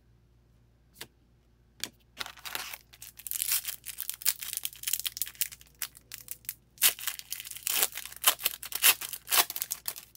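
A foil trading-card pack wrapper being torn open and crinkled in the hands. After a couple of light clicks, dense crackling and rustling starts about two seconds in.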